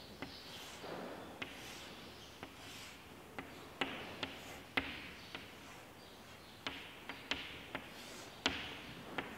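Chalk on a chalkboard: quiet, irregular sharp taps as the chalk strikes the board, about a dozen, with soft scratching as lines of a table are drawn.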